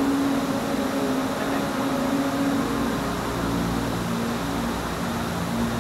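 Steady rushing of a mountain waterfall, an even roar of falling water with no break.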